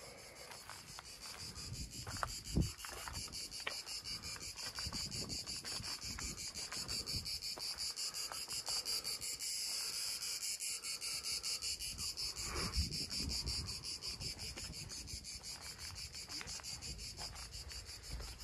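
A chorus of cicadas buzzing in a fast, even pulse, growing louder toward the middle and easing off near the end. Now and then there are soft thumps and rustles of footsteps on dry ground.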